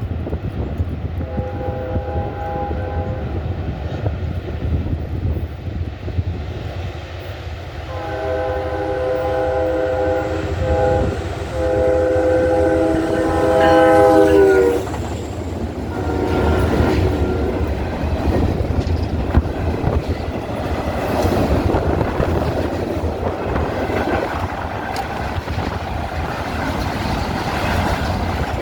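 New Jersey Transit Atlantic City Line train sounding its horn as a chord in several blasts as it approaches. The horn drops in pitch at the end of the last long blast as the train reaches the camera. The rumble and wheel clatter of the train going by follows.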